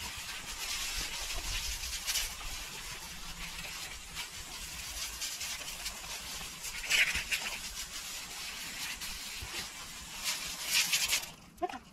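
Water from a hose spraying steadily onto an animal being washed down, with a few louder surges, stopping abruptly about a second before the end.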